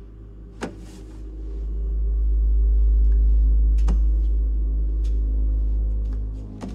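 Deep, ominous soundtrack drone that swells up about two seconds in and holds, with steady humming tones over it and a few faint sharp clicks.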